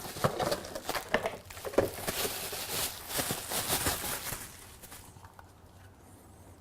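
Handling noises: a quick run of small clicks, knocks and rustles that dies away after about four and a half seconds.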